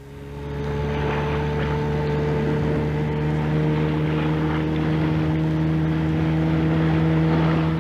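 Motorboat engine running steadily, fading in over about the first second as it draws near: a cartoon sound effect.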